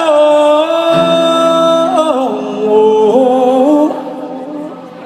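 Live rock concert music over a PA: a voice holding long wordless notes that glide from one pitch to the next. A sustained low chord comes in about a second in, and the sound drops in level near the end.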